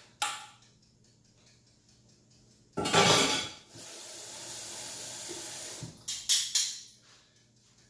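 Kitchen faucet running into a stainless steel sink: a loud clatter and splash about three seconds in, then the water runs steadily for about two seconds and stops, followed by a few sharp knocks of metal dishes in the sink.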